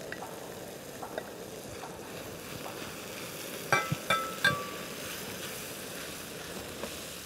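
Liver and onions sizzling steadily in a frying pan, with three quick, ringing knocks of a wooden spatula against the pan about halfway through as the onions are stirred in.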